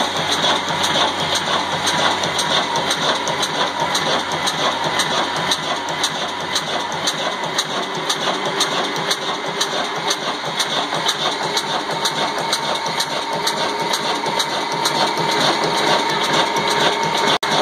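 Old 'desi' stationary diesel engine of the Ruston Hornsby type, with its big flywheel, running steadily with an even beat of clicks.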